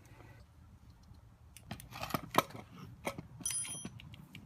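Scattered light metallic clinks and taps of metal objects being handled, with a brief high ringing about three and a half seconds in.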